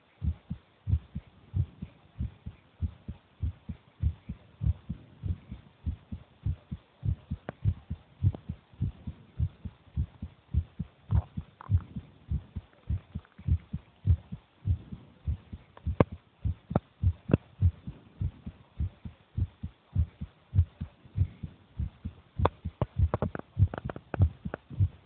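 A ten-year-old child's heartbeat: low lub-dub thumps in close pairs, repeating evenly and quickly. Scattered sharp clicks come through, several close together near the end.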